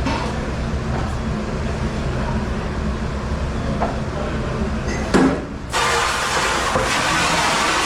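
Dishwasher running with a steady low rumble. About five seconds in comes a knock, then the sound changes to a louder, bright hiss.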